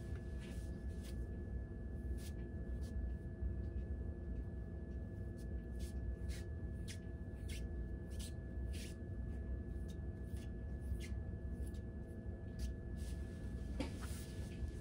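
Short, soft scratchy rustles, coming in quick succession, as hands work through long braided hair and brush the salon cape, over a steady background hum.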